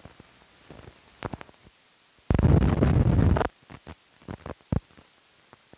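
Optical soundtrack noise of old film running through a splice and countdown leader: scattered pops and clicks, with one loud burst of rough noise about two seconds in that lasts just over a second.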